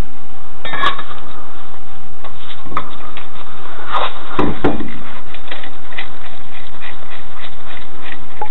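Alloy road wheel being pulled off the car's hub studs by hand: scrapes, rubbing and small knocks, with a heavier thump about four and a half seconds in.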